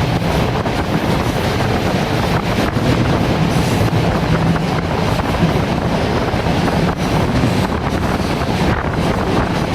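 Passenger train running along the track: a steady, unbroken rumble of wheels rolling on rails.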